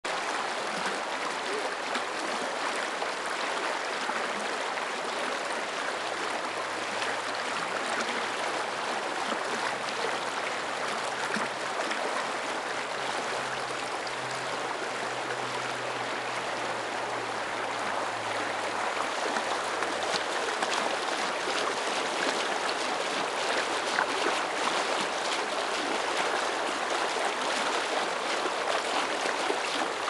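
Shallow river rushing and splashing over rocks in a riffle close to the microphone, a steady water noise that grows a little louder about two-thirds of the way through.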